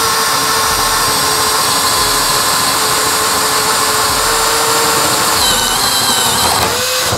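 Bosch GSB 185-LI 18 V cordless drill/driver in low gear (position 1), boring into angelim hardwood: a steady motor whine that sags slightly in pitch under load, then stops near the end.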